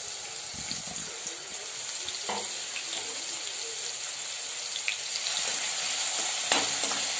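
Finely chopped onion sizzling in hot oil in a kadhai: a steady hiss, getting a little louder in the second half. A spatula knocks and scrapes against the pan as stirring begins near the end.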